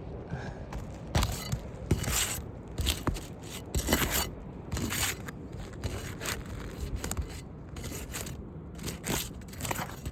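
Asphalt roof shingle being worked loose for removal: an irregular series of sharp scraping and crunching strokes, the loudest in the first half.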